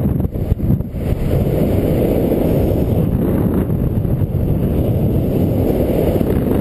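Wind rushing over the camera microphone of a paraglider in flight: a loud, steady low rumble of airflow, dipping unevenly for a moment in the first second.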